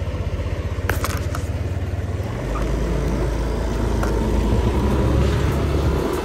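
Yamaha Aerox V2 scooter's single-cylinder engine running at low speed with a pulsing beat. About two and a half seconds in it gets louder and steadier as the scooter accelerates.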